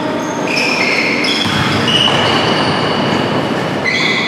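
Basketball shoes squeaking on a hardwood gym floor: several high squeaks at different pitches, some overlapping, each lasting up to about a second. Under them runs the echoing noise of players running on the court.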